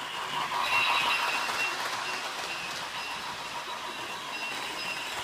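Remote-control Thomas the Tank Engine toy train running on its track: a steady hiss with a faint, wavering high whine.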